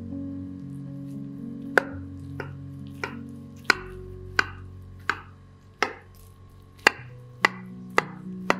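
A knife cutting through a baked casserole's browned cheese crust: a string of crisp cuts starting about two seconds in, about one every half-second, over soft background music.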